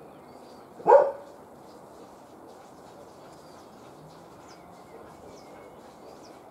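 A dog barks once, about a second in. A steady outdoor hiss and a few faint high bird chirps follow.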